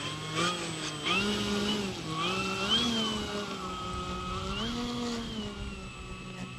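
Electric motor and propeller of a foam RC airplane running at low power, the whine rising and falling in pitch several times as the throttle is worked.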